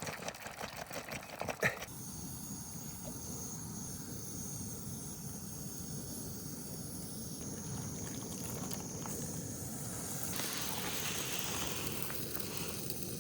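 Backpacking camp stove burner hissing steadily, coming on about two seconds in after a few clicks. Near the end a brighter sizzle joins as pancake batter starts frying in the pan.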